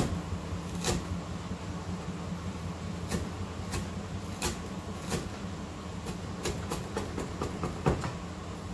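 Kitchen knife chopping on a cutting board: irregular sharp knocks, sparse at first and coming quicker in the last few seconds, over a steady low hum.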